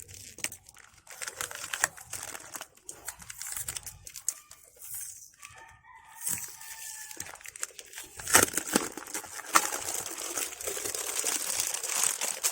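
Plastic packaging crinkling and tearing as a large cutting mat is unwrapped, getting louder in the second half. A short pitched call sounds about halfway through.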